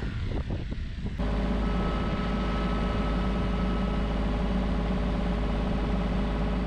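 Kubota compact tractor's diesel engine running steadily, heard from the operator's seat. It starts abruptly about a second in, after a few irregular knocks.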